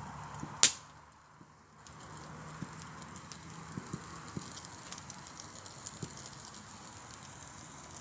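Campfire crackling over a steady hiss, with scattered small pops and one sharp snap just under a second in.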